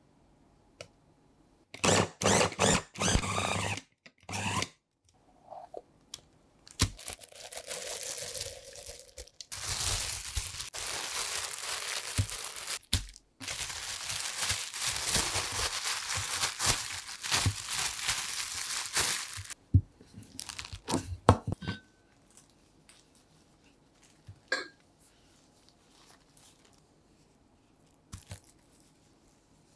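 A food processor pulsing in a few short bursts, then a plastic bag crinkling and rustling for about twelve seconds as tart dough is pressed flat inside it. A few sharp taps follow.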